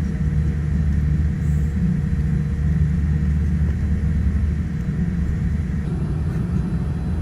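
Steady low rumble of a Boeing 787-10 airliner's engines and airflow heard from inside the passenger cabin, with a faint steady hum over it.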